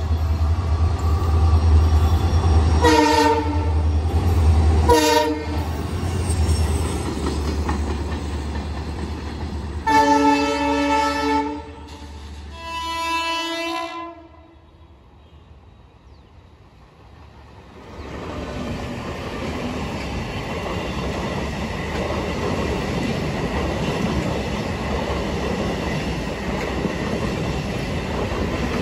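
WDG4 diesel locomotive approaching with its engine rumbling and sounding its horn: two short blasts, then a longer blast about ten seconds in, followed at once by another blast at a different pitch. After a few quieter seconds the wheels of the passing train clatter steadily over the rails.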